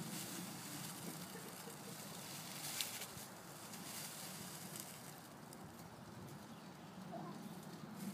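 Faint rustling of dry fallen leaves as small children step and toss them about, with one light tap about three seconds in.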